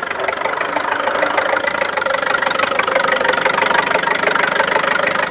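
Farmall F-12 tractor's four-cylinder engine running steadily under load as it pulls a plow, a fast even beat.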